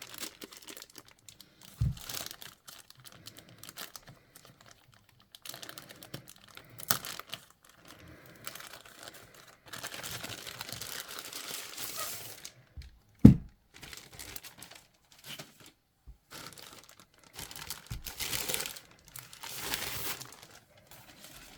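Packaging crinkling and rustling as the soundbar is unwrapped and lifted out of its box, in stretches, with two dull knocks, the louder one about 13 seconds in.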